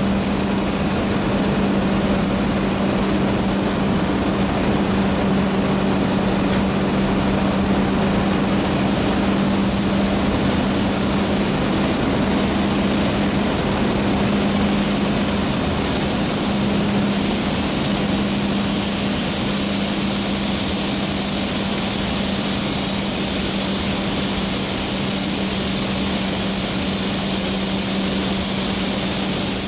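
Steady rushing hiss of steam from the sugar mill's steam line charging a fireless locomotive's tank through a filling hose, over a steady low hum. The hiss gets brighter about halfway through as steam blows out at the pipe and hose joint.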